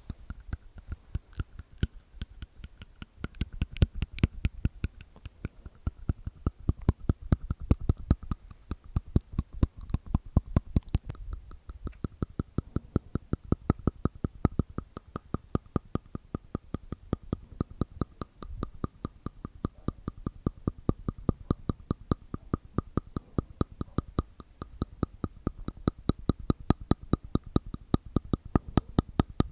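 ASMR mouth sounds: a fast, steady run of wet clicks and pops made with the tongue and teeth inside the mouth, several a second.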